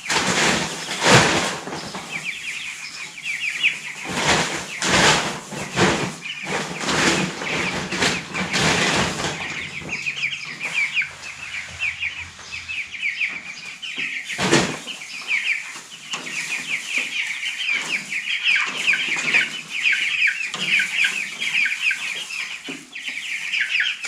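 A flock of young Cornish Cross broiler chicks peeping continuously in short high chirps, broken by several loud rustles and knocks, the loudest about a second in and near the middle.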